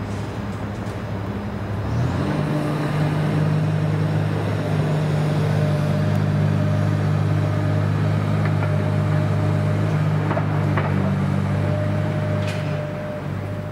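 Diesel engine of a high-reach demolition excavator running, stepping up to higher revs about two seconds in and holding there, then easing back down near the end. A few faint knocks sound over it.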